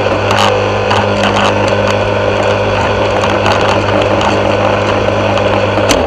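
Yard Machines walk-behind gas lawn mower's single-cylinder engine running steadily under cutting load while being pushed across grass, with occasional sharp ticks over the steady engine note.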